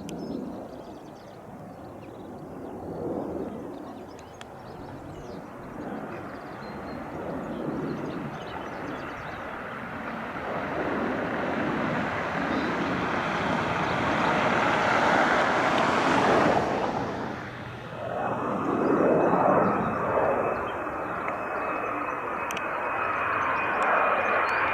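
Military jet engine noise building up over several seconds, loudest about two-thirds of the way in, dipping briefly and then swelling again, with a steady high whine in the later part.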